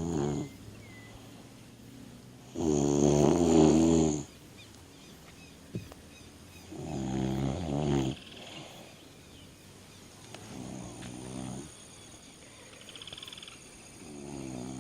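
A man snoring in his sleep: deep snores about every four seconds, the first full one, about three seconds in, the loudest, and a fainter one about ten seconds in.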